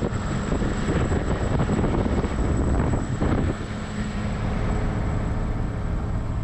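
Bucher Duro truck running on the road, a steady low engine drone under road and wind noise.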